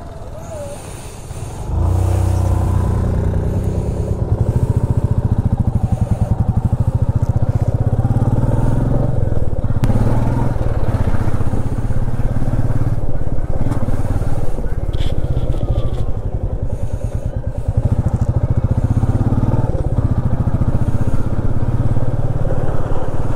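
Motorcycle engine running under way, its steady low thrum growing louder about two seconds in as the bike pulls away.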